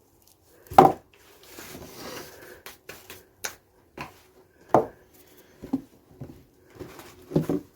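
Hard objects being handled and set down: a few irregular knocks and clatters, the loudest about a second in, with rustling between.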